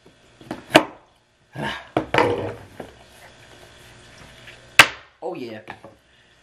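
Sharp clicks and scraping as a small knife slits the plastic wrap on a cardboard earbud box and the box is handled, with one loud sharp click near the end followed by a short falling-pitched sound.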